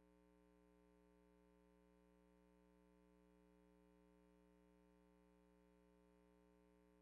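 Near silence: a faint, steady hum with nothing else.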